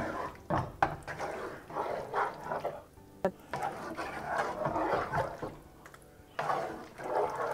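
Wooden spatula stirring chicken pieces through a thick yogurt masala in a non-stick pan: irregular wet squelching and scraping, with a few sharp knocks against the pan.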